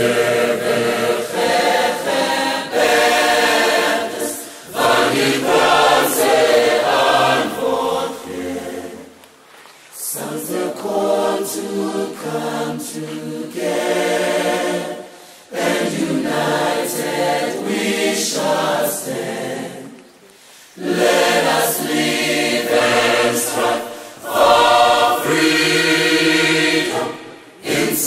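A choir singing in long sustained phrases, with short breaks between phrases about every five to ten seconds.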